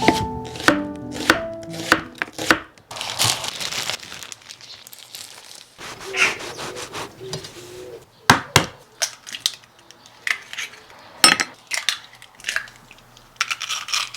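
Kitchen work on a worktop: irregular sharp knocks and clatters of utensils and cookware, with a short hiss about three seconds in. Plucked-string music tails off at the start.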